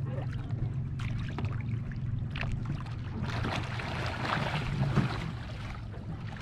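Lake water splashing and sloshing against a sit-in kayak as a swimmer heaves himself onto its bow and tips it onto its side. A few light splashes early on, then a heavier rush of splashing from about three seconds in, loudest near the end, as the cockpit starts to fill with water.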